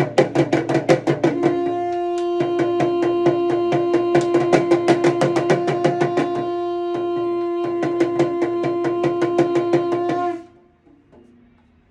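A damru rattled in a fast, even rhythm of about seven strokes a second, joined about a second and a half in by a shankh (conch shell) blown in one long, steady note. Both stop together near the end.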